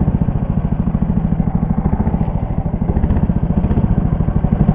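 Engine of a Leader 3 motorised snow tow (motobuksirovshchik) running at idle, a steady rapid putter that dips slightly midway and picks up again near the end.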